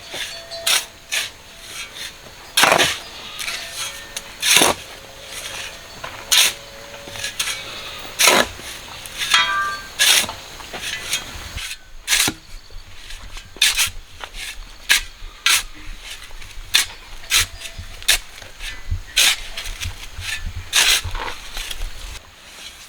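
An irregular series of sharp scraping or striking strokes from a hand tool working the ground, roughly one or two a second, with a brief chirping sound a little after a third of the way in.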